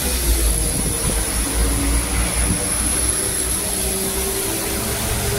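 Class 172 Turbostar diesel multiple unit pulling away under power, its underfloor diesel engines running with a heavy low rumble and a steady high whine, the engine note rising slightly near the end.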